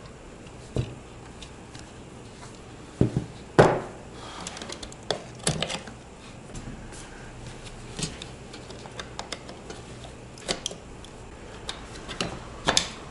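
Irregular clicks, knocks and scrapes of metal and plastic computer parts as a graphics card and its riser cable are pulled out of a small ITX PC case. The loudest knocks come about three to four seconds in.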